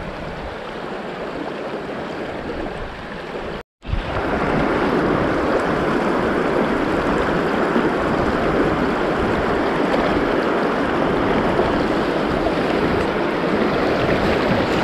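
Steady rush of a river's flowing water. It cuts out for a moment a little under four seconds in and comes back louder.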